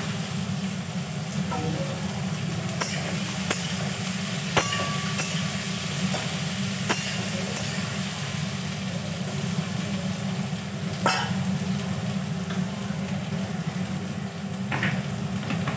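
Cucumber and long-bean pieces sizzling in oil in an aluminium kadai, under a steady low hum. A metal spatula knocks and scrapes against the pan about eight times while stirring, loudest about eleven seconds in.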